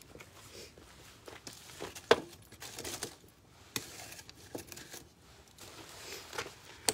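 Wood fire in a fire bowl crackling: irregular pops and snaps, the sharpest about two seconds in.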